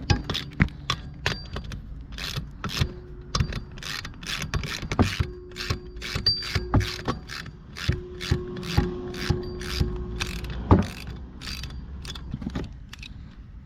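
Hand ratchet wrench clicking in short, irregular runs as a bolt in the cylinder head is turned.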